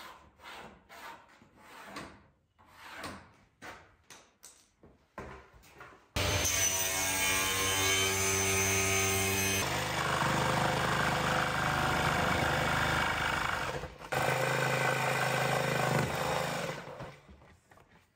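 A power saw cutting a plywood sheet: after some lighter handling sounds, it starts abruptly about six seconds in, its sound changes partway through, it dips briefly once, and it dies away near the end.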